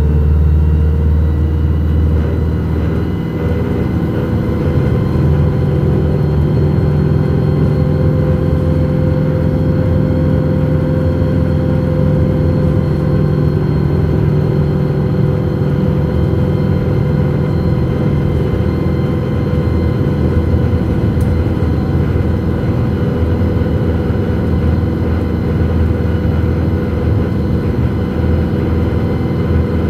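Alexander Dennis Enviro 200 single-deck bus heard from inside the passenger saloon while driving at road speed: a steady engine drone with a low rumble of tyres on the road.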